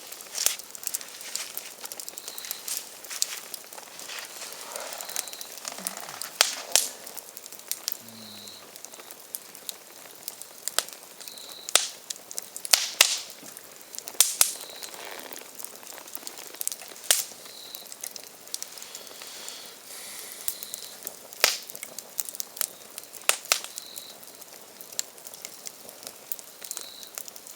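Firewood burning in an open campfire, crackling steadily with sharp, irregular pops; the loudest pops come around the middle.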